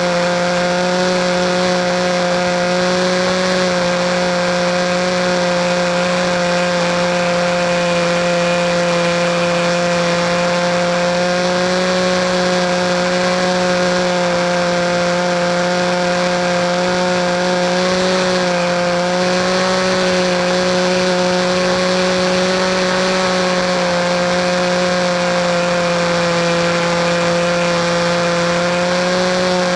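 Small engine of an RC model airplane running steadily at high speed, its pitch wavering only slightly, with a hiss of wind or prop wash behind it.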